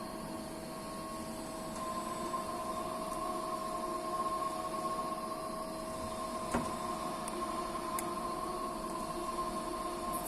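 Leadwell T6M CNC lathe running: a steady machine hum with a steady whine, and a single click about two-thirds of the way through.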